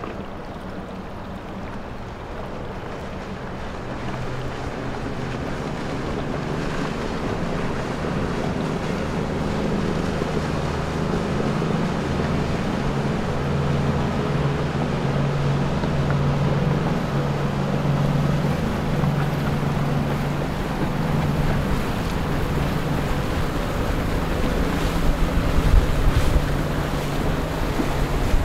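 Motorboat engine hum over water wash, growing louder over the first several seconds as the boat draws near, with wind buffeting the microphone near the end.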